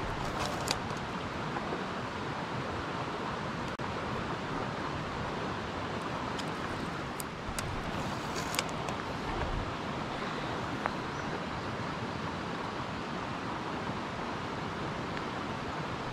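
Steady rushing outdoor noise, with a few short sharp clicks scattered through the first two-thirds.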